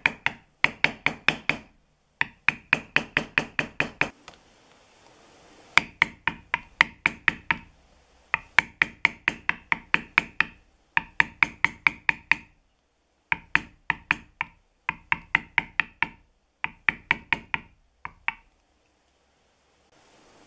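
Mallet rapidly striking a metal background stamp on tooling leather, about five or six blows a second in short runs with brief pauses as the tool is moved along, pressing down the background around the picture. The blows stop about two seconds before the end.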